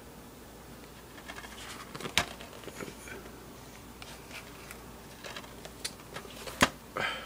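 DVD box sets being handled and moved on a wooden desk: faint rustling and sliding, with two sharp knocks, one about two seconds in and a louder one near the end, followed by a short scrape.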